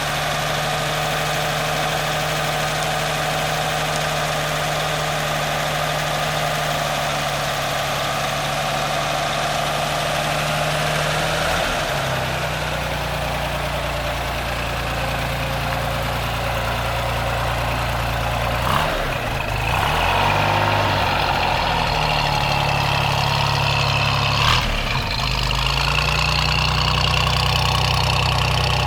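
An engine idling steadily, its note shifting a few times, about twelve seconds in and again after about nineteen seconds, with a couple of brief clicks along the way.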